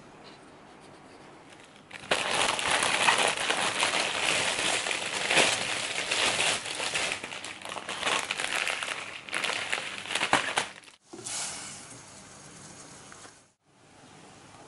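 Plastic instant-noodle packets crinkling and rustling loudly as they are handled, starting about two seconds in and stopping near eleven seconds.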